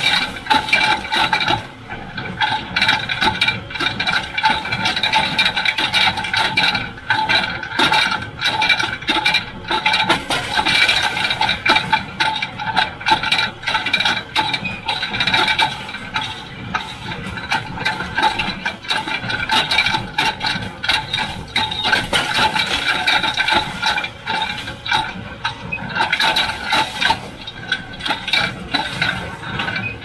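John Deere 348 small square baler and its #42 pan kicker running while towed through the field: a steady, dense clatter of knocks and rattles from the working machinery.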